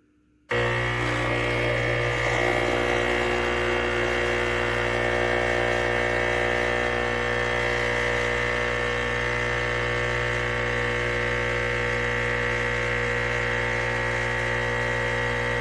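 ChefWave capsule espresso machine's 20-bar pump running steadily as it pushes water through, a loud, even electric buzz with a strong low drone that starts abruptly about half a second in. The button is being held to program the brew's water level.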